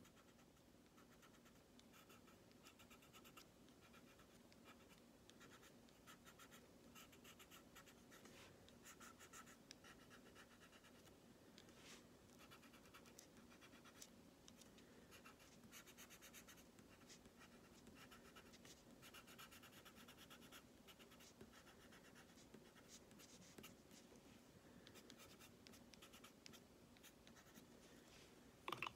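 Faint scratching of a coloured pencil shading on card, in quick runs of short back-and-forth strokes. A light knock sounds near the end.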